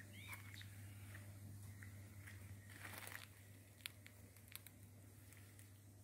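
Near silence: a steady low hum with a few faint clicks and rustles, and a short faint chirp about a third of a second in.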